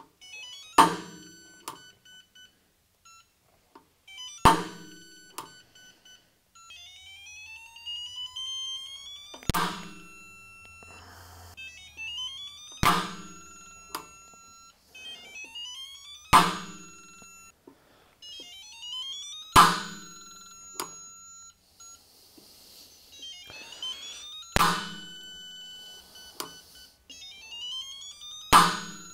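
A Stahlwille 1/2-inch mechanical click-type torque wrench clicks off eight times as it is pulled against a digital torque tester at rising torque settings. Each click marks the wrench breaking over at its set torque and is followed by a brief ringing tone. Rising whines sound between several of the pulls.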